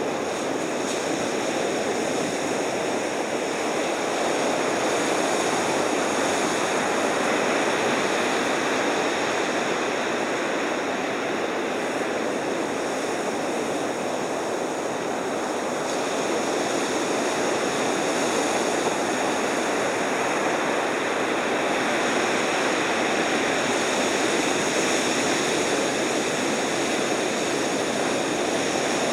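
Ocean surf breaking in a steady, continuous roar.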